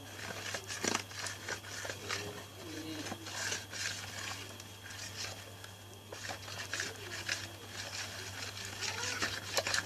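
A stirrer scraping and clicking through wet slime mixture in a plastic container, in irregular strokes, over a steady low hum.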